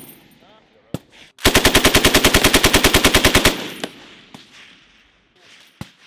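A 7.62 mm belt-fed machine gun fires one long, even burst of about two seconds at roughly ten rounds a second, with a single sharp shot just before it. A few fainter isolated shots follow near the end, and each report echoes across the range.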